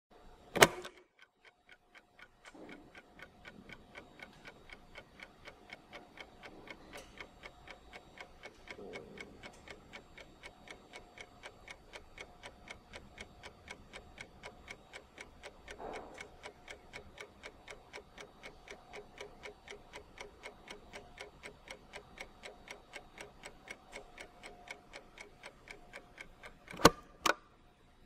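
Big mechanical stopwatch: one loud click as its button starts it, then fast, even ticking at about five ticks a second, and two loud clicks close together near the end as it is stopped and reset.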